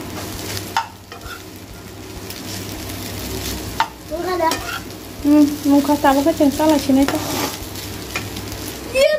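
Chow mein noodles with chicken and egg sizzling in a frying pan while being stirred and tossed with a metal spoon, with a few sharp clicks of the spoon against the pan. A voice sounds for a few seconds in the middle.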